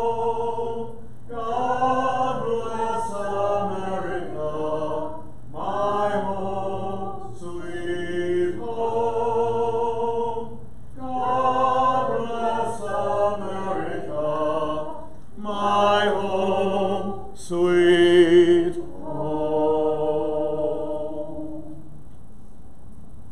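Unaccompanied hymn singing in several phrases with short breaths between them. It stops near the end.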